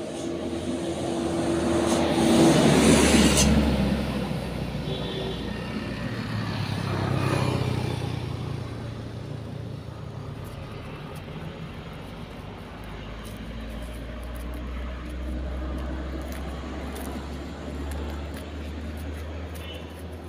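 Vehicles passing on a road, the loudest going by about two to four seconds in and another around seven seconds, over a steady low hum.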